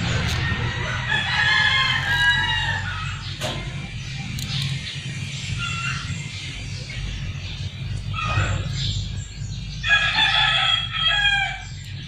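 A rooster crowing twice: one long crow about a second in and another near the end.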